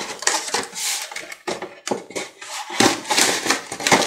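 Cardboard lid of a tight-fitting model kit box rubbing and scraping against the box as it is worked off in a series of short, uneven pulls.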